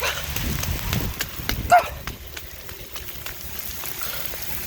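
Rain falling, with scattered sharp taps of drops close to the microphone and some low rumble in the first half.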